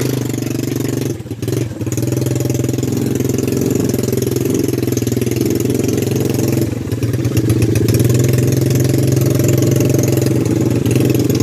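Small ATV engine running as it is ridden over rough ground, with a steady engine hum. The engine note drops briefly a little over a second in and again near seven seconds, then picks up and runs louder.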